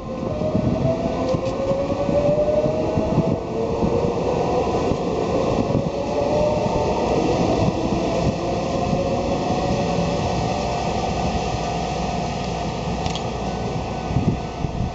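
Electric train passing close by: a steady rumble, with a motor whine that rises slowly in pitch.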